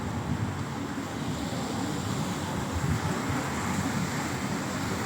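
Beach ambience: wind rumbling unevenly on the phone's microphone over a steady hiss of surf.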